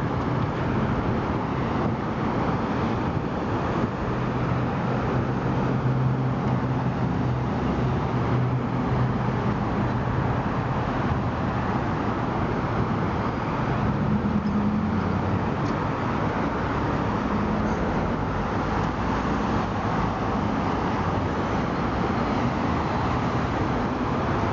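Steady roar of freeway traffic on the I-405 below, with a low engine hum standing out twice as vehicles pass.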